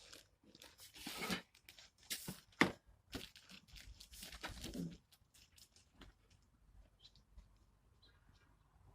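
Packaging being torn and handled while parts come out of the box: irregular rustling, tearing and scraping for about five seconds, then fainter handling noises.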